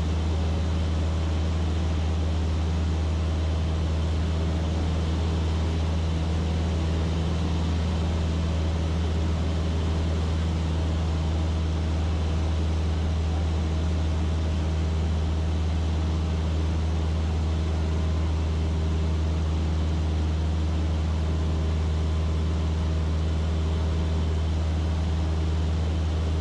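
Cessna 152's four-cylinder Lycoming engine and propeller droning steadily in cruise flight, a constant low hum heard from inside the cockpit.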